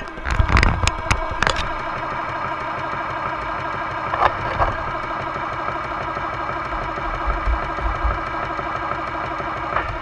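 R/C Panther tank sitting still with its simulated engine idling steadily. A few sharp clicks and knocks come in the first second and a half as the tank is handled.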